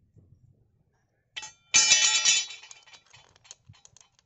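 Steel saw chain and guide bar clinking and jangling as the chain is worked onto the bar of an angle-grinder chainsaw attachment. A short ringing clink comes about a second and a half in, followed by a louder metallic rattle that lasts about a second and then dies away into small clicks.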